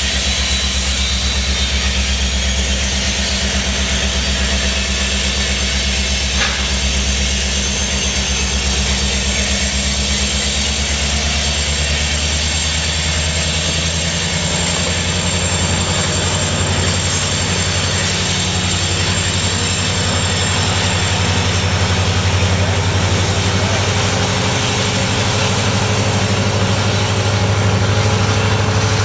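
EMD SD70M-2 diesel locomotive working as a pushing distributed-power unit on a loaded coal train, a steady low engine drone. Its pitch changes about 13 seconds in, and it grows a little louder toward the end.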